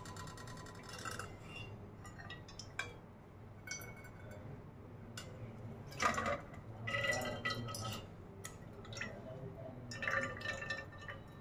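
A steel ladle clinks and scrapes in a pan of cooked-down cream. Ghee is poured from it through a steel mesh strainer into a steel pot, pouring and dripping. The loudest pour comes about halfway through, with more ladling near the end.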